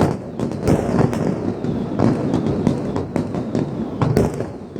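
Aerial fireworks display: a rapid run of booms and sharp bangs over a continuous low rumble and crackle of bursting shells.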